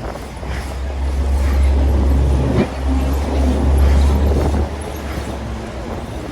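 A motor vehicle passing close by in traffic: a loud low rumble that swells over the first couple of seconds, holds, then falls away about four and a half seconds in.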